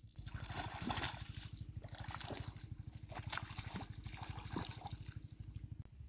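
Hooked fish thrashing and splashing at the water's surface as it is played toward the bank, in repeated bursts over the first five seconds. A fast, even low pulsing runs underneath and stops shortly before the end.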